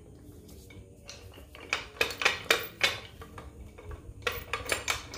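A run of sharp, irregular metallic clinks and clanks, starting about two seconds in, from the steel pulling chain, hook and jack hardware as the jack is lowered and the chain goes slack.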